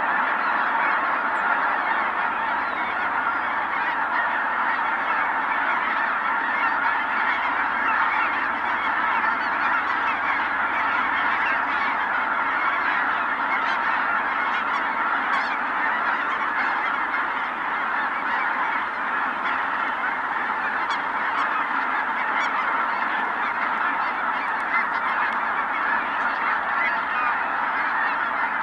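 A large flock of Ross's geese calling all at once: a steady, unbroken chorus of many overlapping honks.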